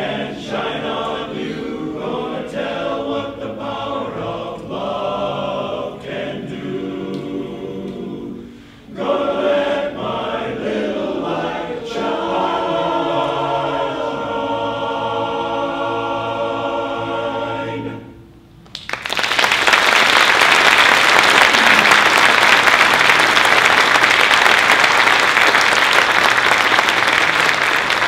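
Men's barbershop chorus singing a cappella, ending on a long held chord. About a second after the chord stops, the audience breaks into applause, louder than the singing, which goes on to the end.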